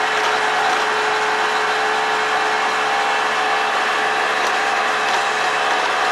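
Radio-controlled Hymer motorhome model running: a steady, unbroken mechanical hum with a constant tone and no change in pitch.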